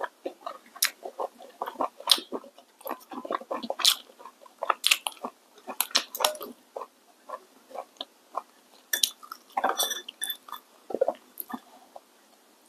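Close-miked eating of spicy hot pot with chopsticks: chewing and biting in quick, irregular wet clicks, dying away near the end.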